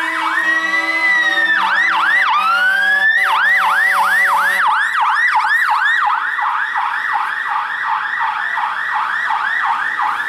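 Fire engine sirens on an emergency run, a slow rising and falling wail that switches to a fast yelp of about three cycles a second. Under them, for the first few seconds, a steady chord of low tones from the fire trucks' air horns.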